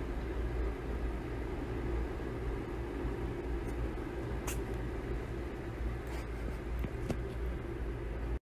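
Steady low background hum, with a puppy's short, faint sneeze about four and a half seconds in that wakes the kitten sleeping against it.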